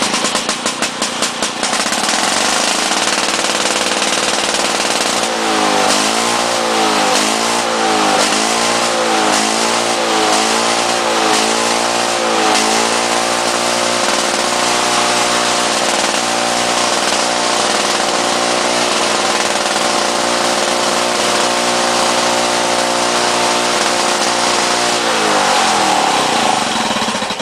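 1993 Lawn-Boy 10201 two-stroke mower engine firing up on choke right away. For several seconds it surges up and down about once a second, then runs steadily at high speed before its pitch falls and it shuts off near the end. It is running a bit too fast.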